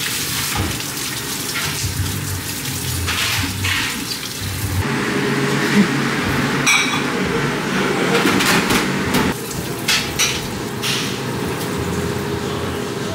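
Tap water running into a stainless steel sink during dishwashing, with clinks and clatters of dishes and cutlery.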